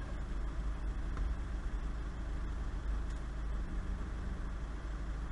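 Campervan engine idling, a steady low rumble heard from inside the cab.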